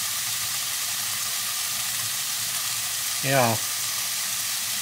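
Diced chicken sizzling steadily in a non-stick pan over a portable gas stove, browning as it cooks.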